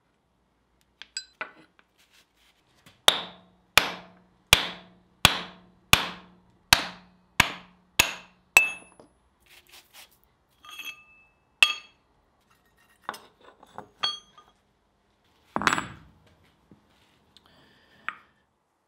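Hand hammer striking steel at a power hammer's die holder to knock the dies loose. There are about nine ringing blows in a steady rhythm, roughly one every 0.7 s, then a few lighter metallic clinks and one heavier thud a few seconds before the end.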